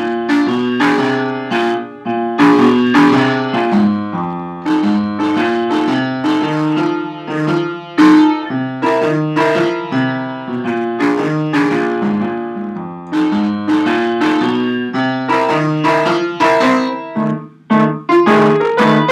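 Upright piano played with both hands: a blues in F, with chords over a repeating left-hand pattern, broken by a brief pause near the end.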